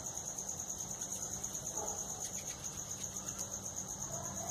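A steady high-pitched trill that pulses rapidly and evenly, typical of an insect such as a cricket.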